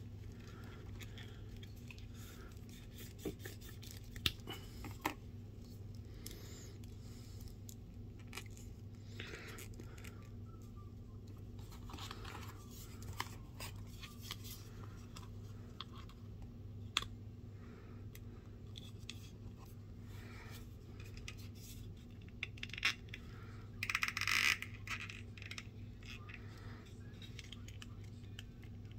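Quiet handling of a plastic Mythic Legions action figure and its accessories: scattered small clicks and scrapes as a shield is worked into the figure's hand, with a brief louder rustling scrape about 24 seconds in. A steady low hum runs underneath.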